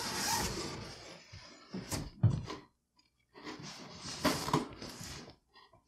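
Handling noise from packaging: rustling of bubble wrap and cardboard as a bubble-wrapped board game box and its cardboard shipping box are moved on a wooden floor, with two sharp knocks about two seconds in.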